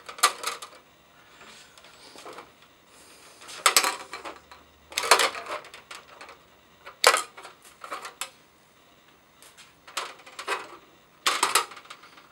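Wire cutters snipping the lead wires of a replacement fluorescent light ballast to length: several sharp snips at irregular intervals, a few seconds apart.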